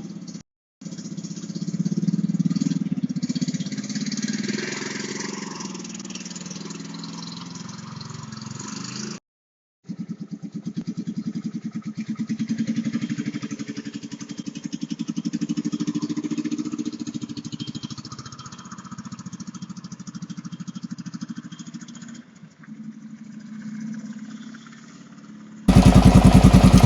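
Honda TLR200 trials bike's single-cylinder four-stroke engine running, rising and falling in speed, heard across several cuts, with a much louder, closer stretch in the last second.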